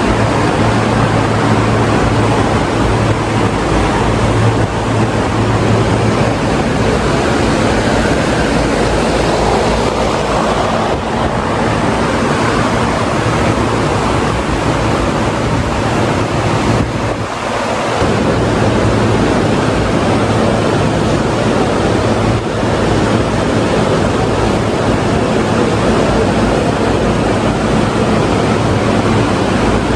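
Loud steady rushing of wind buffeting the microphone, with a low steady hum underneath; it dips briefly a little past halfway.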